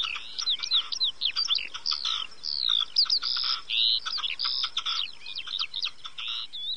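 Dense birdsong: many small birds chirping and whistling at once in quick, overlapping rising and falling notes, cutting off abruptly near the end.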